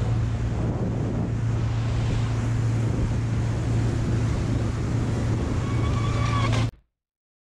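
Steady low drone of a full-size motorboat's engine under way, with wind buffeting the microphone and water rushing past the hull. The sound cuts off abruptly to silence about a second before the end.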